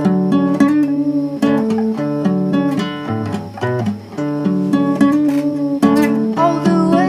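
Outro music played on guitar, plucked and strummed chords.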